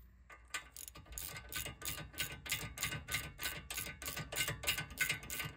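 Hand ratchet wrench clicking steadily, about five clicks a second, as it spins the 15 mm nut off the outer tie rod end's stud.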